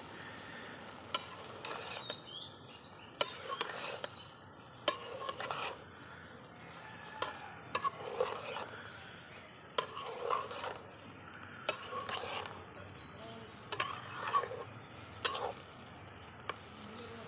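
Metal spatula stirring steamed cabbage, potato and carrot in an aluminium karahi, scraping and knocking against the pot roughly once a second.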